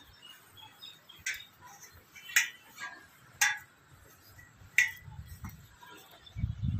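Someone climbing a metal ladder: four sharp metallic clinks about a second apart as the rungs are stepped on.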